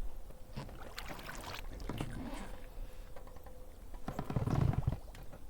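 Small rowboat being rowed: oars dipping and splashing with a few light knocks. The loudest splash comes about four and a half seconds in.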